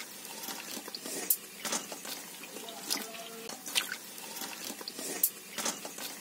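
Water dripping from soaked Indian jujubes draining in a stainless-steel colander: scattered irregular drips, a few a second.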